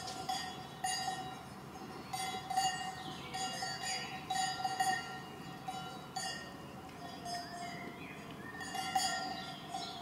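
Cowbells worn by grazing cows clanking irregularly, several bells ringing over one another with overlapping strikes and lingering ring.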